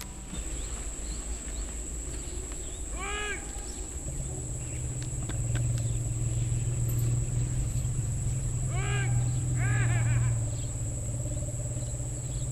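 Outdoor ambience in which a bird gives three short rising-and-falling calls, two of them close together near the end. A steady low hum sets in about four seconds in and is the loudest sound.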